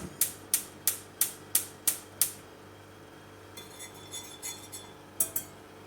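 Gas hob's electric spark igniter clicking evenly, about three clicks a second for two seconds, as a burner is lit. A few lighter clinks follow near the end.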